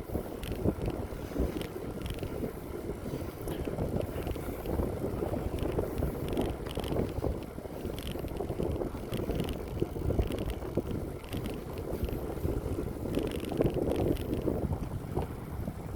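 Wind buffeting the microphone of a moving bicycle riding into a strong headwind, a rushing, gusting noise with faint ticks and rattles over it.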